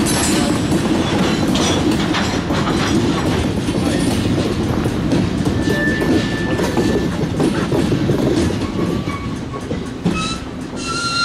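Freight train of covered hopper cars rolling past close by: a steady rumble with wheels clicking over the rail joints. A high-pitched wheel squeal sets in near the end.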